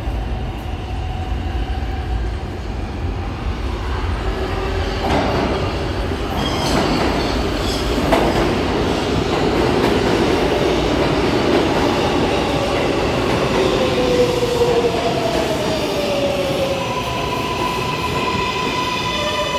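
R142A subway train pulling into an underground station: the rumble of its wheels on the rails grows louder as it runs in alongside the platform. From about 14 s a falling whine sounds as it brakes toward a stop, and a steady higher tone sounds near the end.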